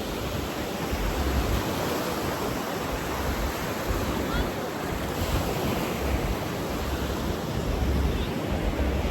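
Ocean surf washing steadily onto the beach, with gusts of wind buffeting the microphone.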